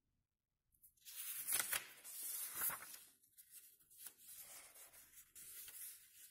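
A square sheet of origami paper rustling and crinkling as hands turn it over and fold it in half, with a few sharp crackles in the first half.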